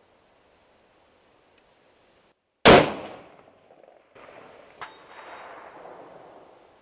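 A scoped hunting rifle fires a single shot, loud and sudden, its report dying away over about a second. About two seconds later comes a faint sharp tick with a brief thin ring, the sound of the bullet striking the steel target at 550 yards.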